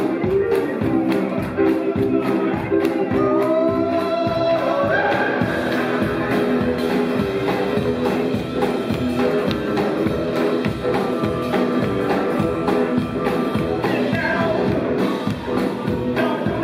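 Live rock and roll band playing, electric guitar to the fore, with the audience clapping along in time.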